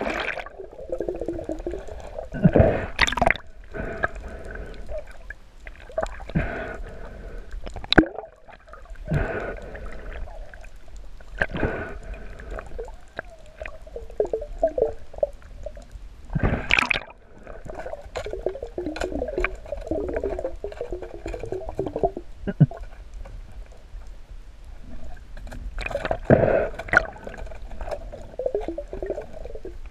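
Underwater water noise: gurgling and bubbling water rushing past the microphone, with irregular sharp knocks and splashes now and then.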